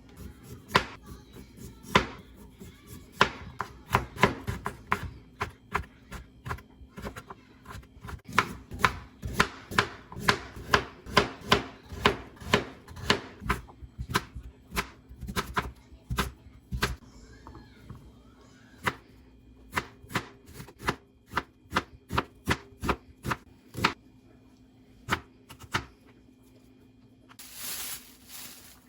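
Kitchen knife chopping on a cutting board in runs of quick, even strokes, about two or three a second, with a few short pauses; a brief hiss near the end.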